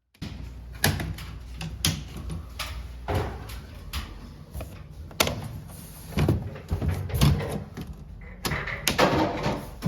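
Irregular knocks, clicks and clatter of Daikin ceiling-cassette air-conditioner parts being handled during disassembly, over a steady low hum.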